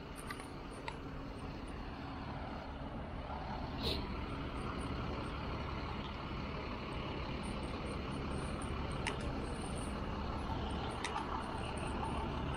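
City street traffic: a steady rumble of passing cars and buses that grows slightly louder, with a few sharp clicks.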